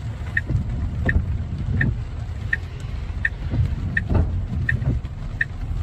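Steady low rumble with a short high-pitched beep repeating evenly, about every three quarters of a second.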